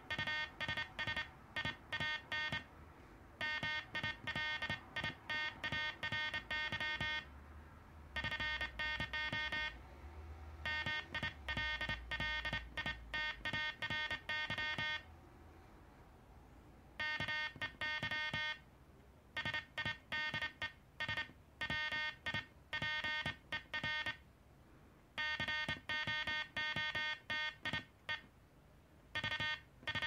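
Morse code sidetone, a buzzy mid-pitched tone keyed in rapid dots and dashes by hand on a Soviet KDM-2 sideswiper (cootie) key. It is sent in runs of a few seconds, with short pauses of about a second between them.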